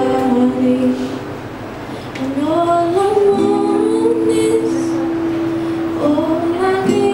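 A young woman singing a slow song in long held notes to her own acoustic guitar, sliding up into a new note about two seconds in and holding it for several seconds.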